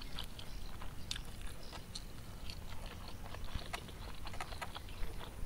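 Bare fingers mixing and squeezing fried rice vermicelli, smashed tempeh and sambal in a stone bowl, making irregular soft wet clicks and light scrapes.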